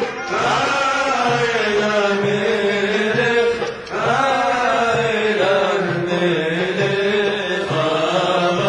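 A man's voice chanting in long, drawn-out, wavering phrases, with a short breath about three and a half seconds in.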